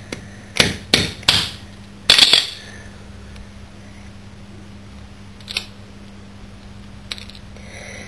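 Sharp taps on the hard shell of a quandong seed, struck to crack the seed coat open. There are four quick taps, then a louder cluster about two seconds in, then two single taps further apart, over a steady low hum.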